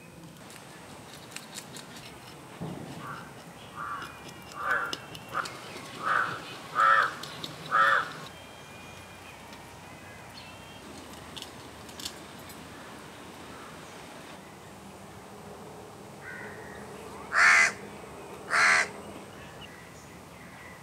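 Crow cawing: a run of about six short caws a few seconds in, then two louder caws later on.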